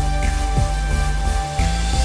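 Background music with held notes, a strong bass and a beat about once a second.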